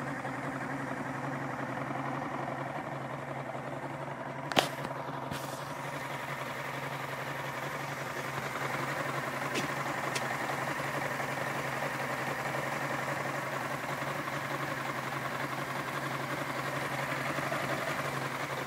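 Vehicle engine idling roughly, a steady drone throughout. A single sharp click about four and a half seconds in, with a fainter one just after.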